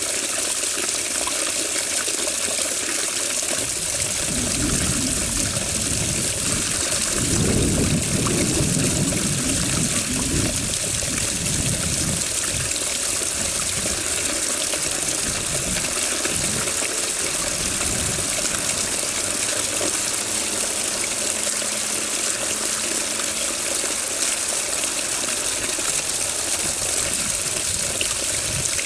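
Running water, a steady rushing and trickling hiss, with irregular low rumbles from about four to twelve seconds in.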